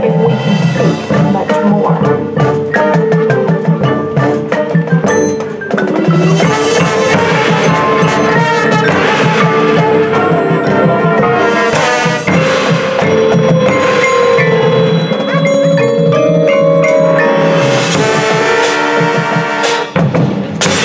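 High school marching band and its front ensemble playing a field show, with marimbas and other mallet percussion prominent among sustained band chords. A rising glide in pitch comes about six seconds in.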